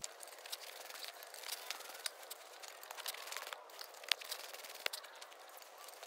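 Hands kneading and pressing a moist bulgur-and-spice çiğ köfte mixture in a stainless steel bowl, making irregular crackles and small clicks, with one sharper click about four seconds in.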